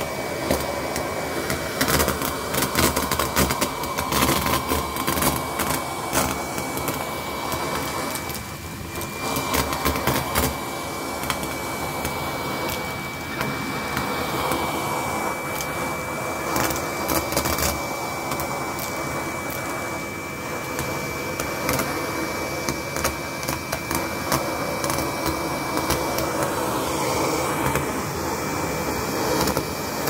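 Numatic Henry cordless vacuum cleaner running with a steady high whine while its crevice tool sucks up metallic confetti sequins, which rattle and click up the tool in quick, dense bursts, most of all in the first ten seconds and again in the middle.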